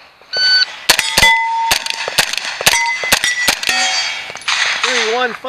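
Shot timer's start beep, then a fast string of about ten pistol caliber carbine shots, 9mm, over roughly three seconds, with steel plate targets clanging and ringing on the hits.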